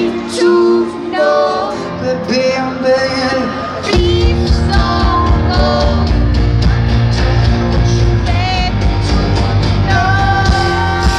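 Live band music with singing, played loud through a stadium PA and recorded from the crowd; a heavy low beat comes in about four seconds in.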